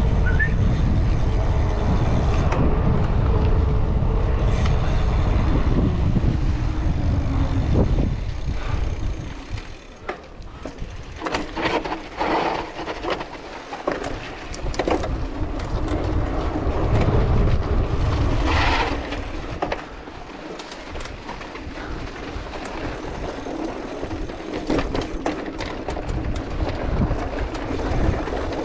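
Cross-country mountain bike in motion, with wind rushing over the microphone. A steady low rumble of tyres on paved road lasts for the first eight seconds or so. After that it quietens, and clicks and knocks of the bike rattling over rough, stony ground take over.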